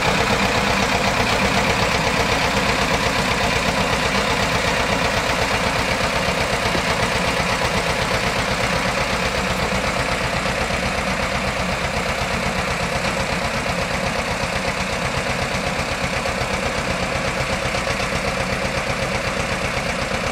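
Diesel engine of a small narrow-gauge field-railway locomotive running with a fast, even beat as it pulls a passenger train, slowly getting quieter as it moves away.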